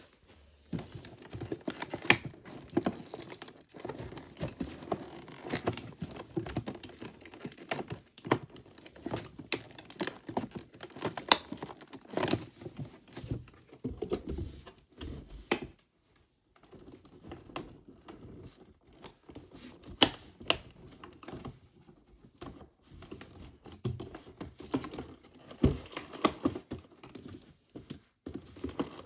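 Small plastic toy pieces and their packaging being handled on a hard surface: an irregular run of sharp clicks, taps and light knocks, with brief pauses.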